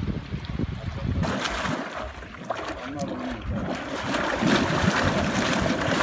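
A jet of hot-spring water pouring onto a bather and splashing into a thermal pool, a steady rush that grows louder toward the end. Wind rumble on the microphone in the first second or so.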